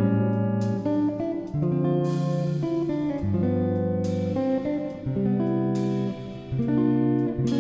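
Background music: guitar chords plucked and strummed, a new chord about once a second.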